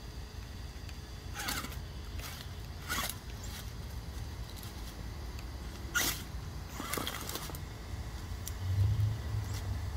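A Redcat Everest 10–based RC rock crawler climbing over stones: its tires and chassis scrape and knock on the rocks, with about four sharp clacks spread out over a steady low rumble.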